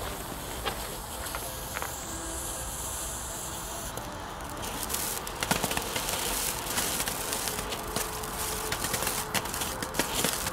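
Small ground fountain firework (WECO Kobold fountain) burning: a steady hiss of spraying sparks, turning from about four seconds in into a dense crackle of many quick little pops as the coloured crackling effect starts.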